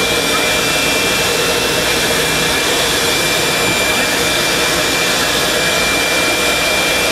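Aircraft turbine running steadily on the apron: a constant rushing noise with a high, unchanging whine.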